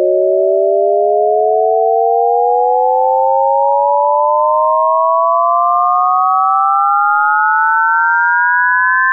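Three pure electronic sine tones, one lower and two close together above it, gliding slowly and steadily upward in pitch together as a synthesized rising chord, levelling off near the end.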